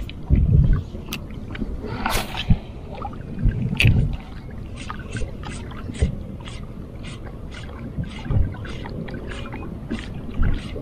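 Spinning reel being cranked in a steady retrieve, giving a light tick about two to three times a second. Low buffeting thumps of wind or handling on the microphone come in the first few seconds.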